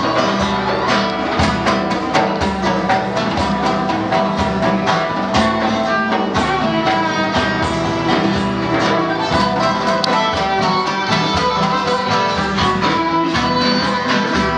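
Live acoustic ensemble of 'oud, acoustic guitar, violin and dohol drum playing a Turkish-Arabic tune in maqam Nihavend. Quick plucked notes run under a bowed violin line.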